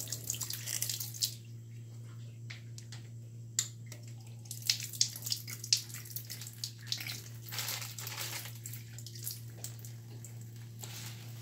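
Water from a kitchen tap running in short spells and splashing in the sink as chili leaves are rinsed, with light clicks and knocks between the spells. A steady low hum runs underneath.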